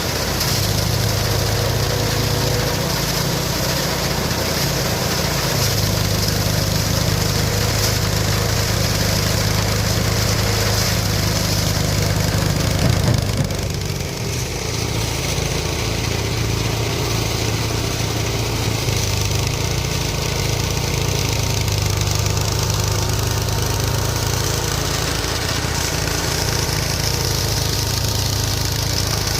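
Small engine-driven mini rice threshing machine running steadily, a constant low engine hum under a broad rattling hiss of threshing. There is a brief change in the sound about halfway through.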